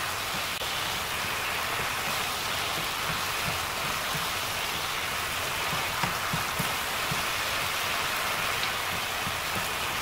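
Seasoning sauce bubbling and sizzling hard in a frying pan as king oyster mushroom slices simmer down in it: a steady crackle of bursting bubbles with small pops.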